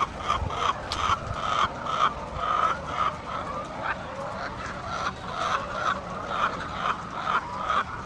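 A flock of laying hens clucking: a dense, continuous string of short calls, about two a second.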